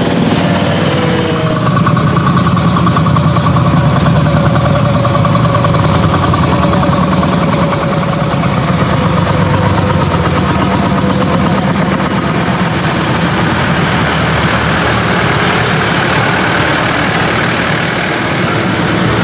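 Engines of several vintage farm tractors running as they drive past one after another.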